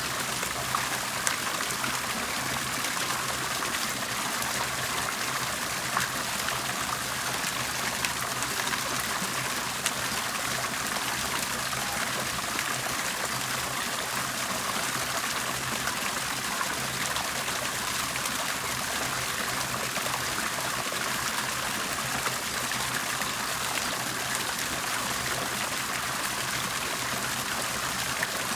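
Water bubbling and trickling steadily, with a few brief sharp drips or splashes on top.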